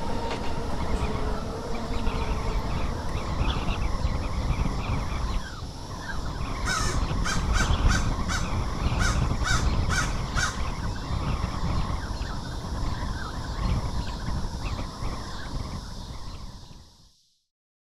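Crows cawing over a steady rumbling outdoor ambience like wind, with a quick series of about three calls a second in the middle, then fading out near the end.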